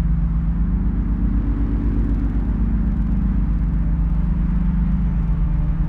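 A steady, deep rumble with a low droning hum in it, unbroken and even in level.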